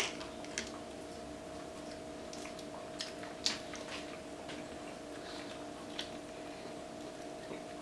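A few light, sharp clicks and taps, scattered a second or more apart, over a steady low hum.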